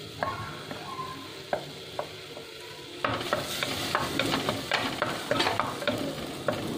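Green chilli slices sizzling in milk cream (malai) frying in a clay pot. From about three seconds in, a wooden spatula stirs and scrapes against the clay, adding quick scraping clicks over the louder sizzle.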